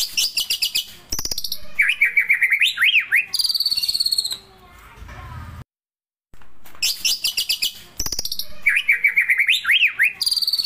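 White-rumped shama (murai batu) singing a loud, varied song of rapid trills and ticking notes mixed with quick up-and-down whistled phrases, a murai batu song filled with mimicked phrases of other songbirds. The same six-second passage plays twice with a brief silent gap between, as in a looped pancingan (lure) recording played to set kept birds singing.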